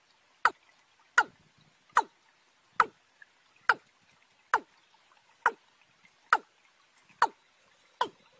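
Watercock calling: a regular series of ten short, sharp 'kok' notes, about one every 0.85 s, each dropping quickly in pitch.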